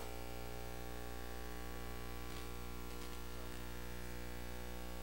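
Steady electrical mains hum with a faint hiss from the room's audio system.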